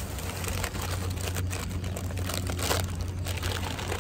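Paper food wrapping crinkling as it is handled, over a steady rumble of wind on the microphone.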